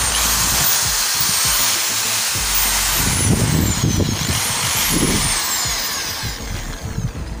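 Rotary hammer drill with a masonry bit running free, not in the wall: a loud motor whine that starts suddenly, slides down in pitch, rises again about four seconds in and falls off once more as the trigger is eased.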